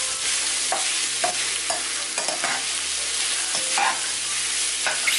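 Ground beef and vegetables sizzling in a nonstick frying pan while a wooden spatula stirs them, its strokes scraping against the pan over and over above the steady sizzle.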